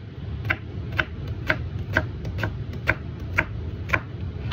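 Kitchen knife slicing a red onion, the blade tapping down onto a plastic cutting board about twice a second, around nine strokes, over a steady low rumble.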